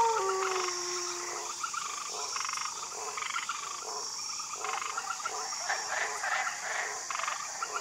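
The end of a grey wolf's howl, sliding down in pitch and dying away in the first second and a half. After it come repeated trains of short rasping, croaking calls over a steady high hiss.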